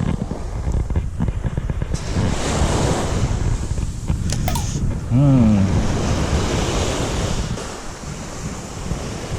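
Surf washing on a beach, with wind buffeting the microphone. A few sharp clicks come a little after four seconds, and a short falling tone about five seconds in.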